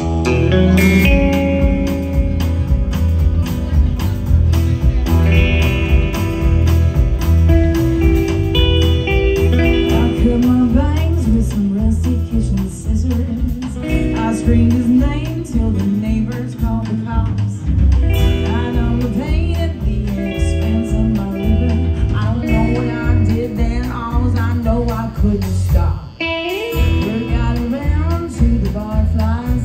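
Live country band starting a song with a sudden loud entry: strummed acoustic guitar over a steady bass and beat, with a woman singing lead.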